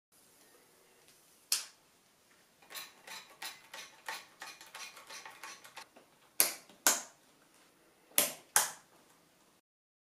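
Hands assembling a PC motherboard: a series of light clicks and taps of parts being handled, then two pairs of sharp clicks as RAM sticks are pushed home and their slot latches snap shut. The sound cuts off just before the end.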